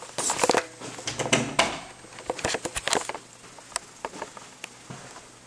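Footsteps on a tile floor mixed with irregular light clicks and knocks of a handheld camera being carried.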